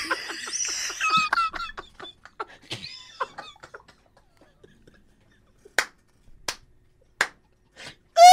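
Men's laughter fading out into quiet, broken gasps. Then come four sharp clicks about two-thirds of a second apart.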